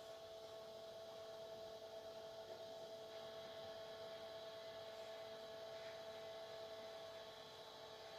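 A faint, steady hum made of a few constant tones that do not change.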